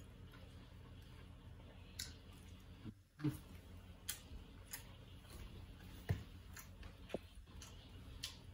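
A person eating rice and raw greens by hand: scattered soft clicks and smacks from chewing and from fingers working the food on the plate, over a faint low hum.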